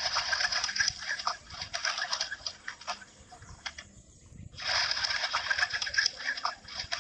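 Birds chattering and chirping with many quick clicks, in two stretches: one that fades out about two and a half seconds in, and another that starts suddenly about four and a half seconds in.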